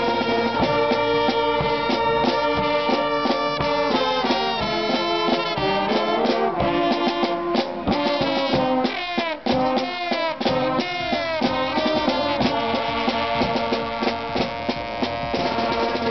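Carnival brass band playing, with a large silver low brass horn close by, trumpets and trombones over a steady drum beat. A run of sliding notes comes about halfway through.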